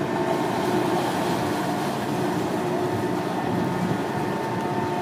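Cruise boat's engine running steadily while moored at the pier: an even mechanical hum with a faint held tone over it.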